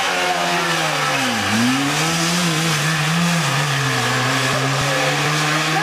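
Rally car engine running at high revs as the car passes at speed; the revs drop sharply and climb back about a second and a half in, then hold high and steady.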